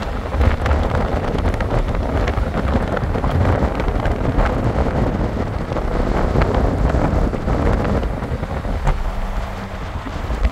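Wind buffeting the microphone, crackling and rumbling over the steady road and engine noise of a moving car.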